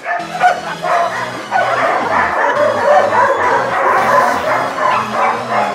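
Several shelter dogs barking and yelping at once, call over call, over background music.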